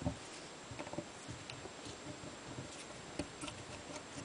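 Faint scattered clicks and light taps of small hand tools and metal gun parts being handled on a wooden workbench.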